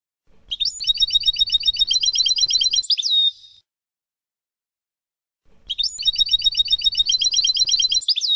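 European goldfinch song: two phrases, each a fast, even trill of high notes at about eight a second that lasts about three seconds and ends in a quick downward slur, with a short silence between them. It is a recorded tutor song of the 'Abu Khalil' style, played for teaching young goldfinches.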